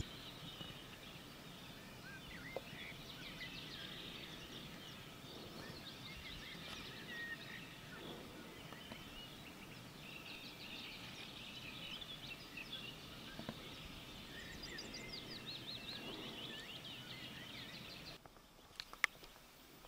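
Faint chorus of small birds singing at once, with many short high chirps and trills overlapping. It drops away near the end, followed by a single sharp click.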